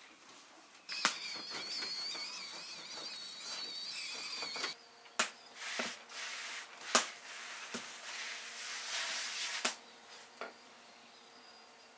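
Hands spreading flour over a thin sheet of rolled-out dough on a wooden board: a soft rubbing hiss broken by a few sharp taps. Before it, from about a second in, a high wavering tone with overtones runs for nearly four seconds.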